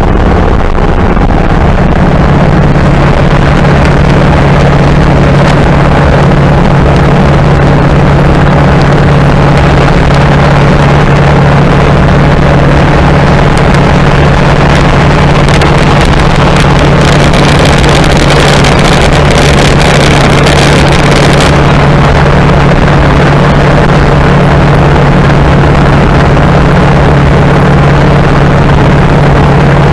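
A 1930 Model A Ford's four-cylinder engine runs steadily at highway speed on a newly installed FSI distributor, with a constant low drone under heavy wind and road noise. A brighter hiss rises for several seconds in the middle.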